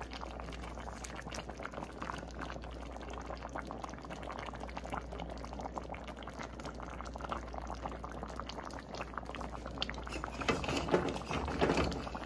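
Fish stew boiling in a wide pan, a steady crackle of bubbles breaking at the surface that grows busier and louder near the end.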